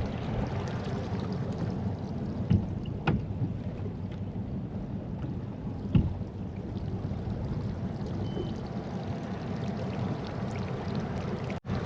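Steady low rumble of a fishing boat sitting on the water, with a few short knocks against the hull.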